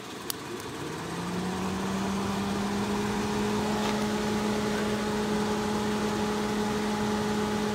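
A steady mechanical hum that rises in pitch over the first couple of seconds and then holds level, over a low rumble. A single sharp click comes just after the start.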